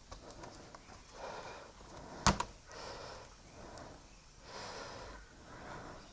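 Heavy breathing in slow, soft swells, with a single sharp click about two seconds in.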